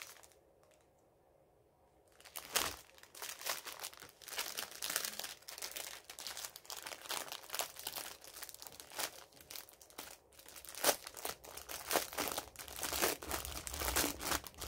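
A plastic bag of small diamond-painting drill packets crinkling and rustling as it is rummaged through, starting about two seconds in and going on irregularly.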